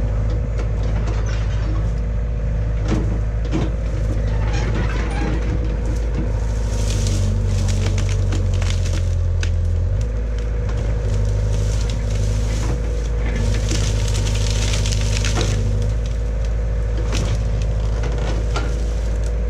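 Caterpillar hydraulic excavator's diesel engine running steadily under load as its boom and bucket push into a tree. The engine works harder for a few seconds near the middle, over repeated sharp cracks of snapping branches and rustling leaves.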